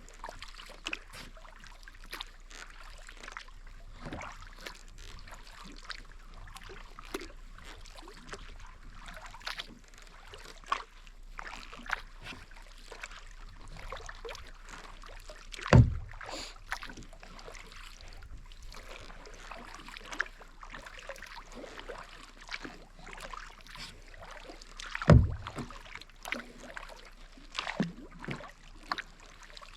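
Kayak paddling on calm water: a steady patter of paddle blades dipping and dripping. Two louder knocks stand out, one about halfway through and another near the end.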